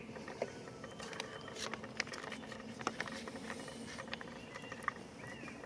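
Scattered sharp crackles of a military ration's plastic fruit-sauce pouch being handled and opened.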